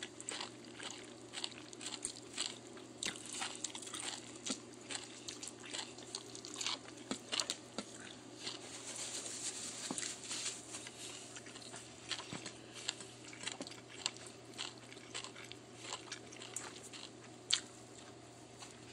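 A person chewing food close to the microphone, with irregular crunches and small mouth clicks.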